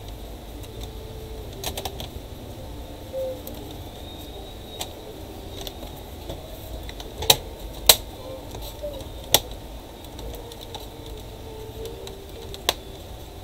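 Plastic palmrest of a Dell Inspiron 15R laptop being pressed down onto the chassis, its clips snapping into place in about six sharp, irregular clicks.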